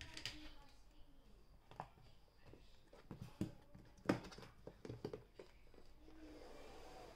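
Plastic lid being fitted onto a plastic food container and pressed down by hand: a series of quiet plastic clicks and taps, the loudest about four seconds in.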